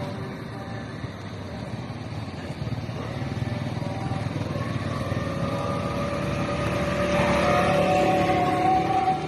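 Motor vehicle engines running in street traffic, getting gradually louder, with a steady pitched tone joining about five seconds in and growing stronger near the end.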